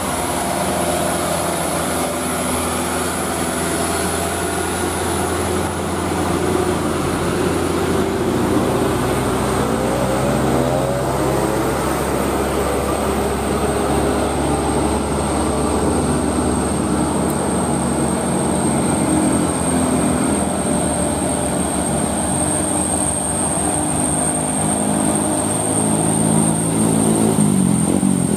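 Diesel engines of loaded Mitsubishi Canter dump trucks running under load as they drive past in a line. The engine note rises about ten seconds in and changes again near the end.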